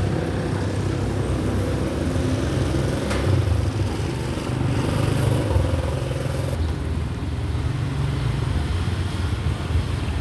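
An engine running steadily with a low hum, swelling a little in level now and then.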